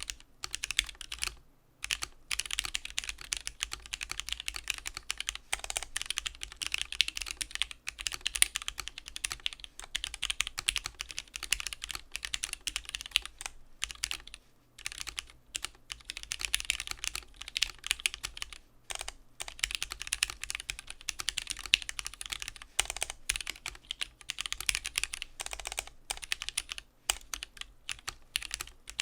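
Continuous fast typing on a Keebio Quefrency split mechanical keyboard with lubed Gateron Black linear switches and PBT keycaps: a steady stream of key strikes with a few short pauses.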